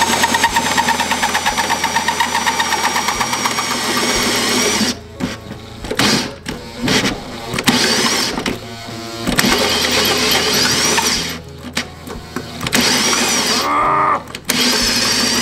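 Ryobi cordless drill cutting through sheet metal with a hole saw. It runs steadily for about five seconds, then in short stop-start bursts with brief pauses, its pitch rising and falling. The drill is working hard enough to overheat, smelling of burning.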